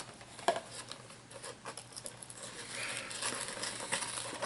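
Light clicks and rustling from hands handling plastic miniatures and booster packaging, with a denser stretch of rustling toward the end.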